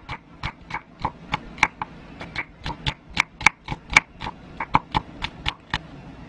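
Chef's knife slicing a red onion on a wooden cutting board: a quick, even run of blade-on-board taps, about three to four a second, stopping shortly before the end.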